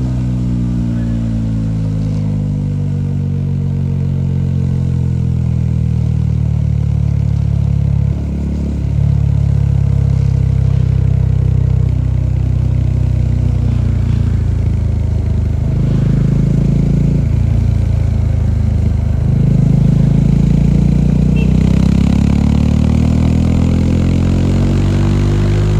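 Bajaj Dominar 400's single-cylinder engine and exhaust under way: the engine note falls at first, holds fairly steady through the middle with a few brief changes, then climbs steadily near the end as the bike accelerates.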